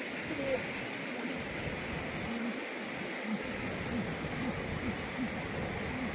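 Chickens clucking in short, low, separate calls that come irregularly, over a steady rushing hiss.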